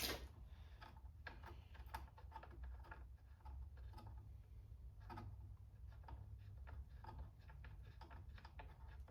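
Faint, irregular clicks and taps of hand tools and small metal parts being handled while a loose spark plug is taken out of a chainsaw, over a low steady hum.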